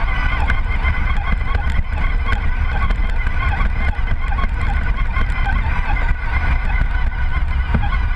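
Electric motor and drivetrain of an RC crawler truck whining steadily as it drives through snow, under a heavy low rumble of vibration on its onboard camera, with scattered small clicks and crackles.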